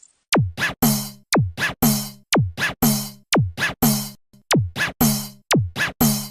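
Electronic drum-machine beat with no melody: short kicks that sweep down in pitch alternate with snare- or clap-like hits in a steady rhythm.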